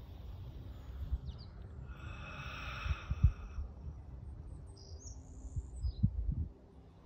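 Wild birds chirping briefly three times, over a low, uneven rumble with a few thumps. A soft hiss lasts about a second and a half, starting about two seconds in.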